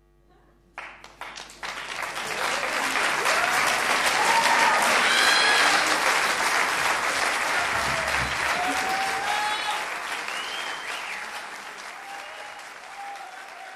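Audience applauding at the end of a performance: a few scattered claps about a second in swell into full applause with some shouts from the crowd, then slowly die away.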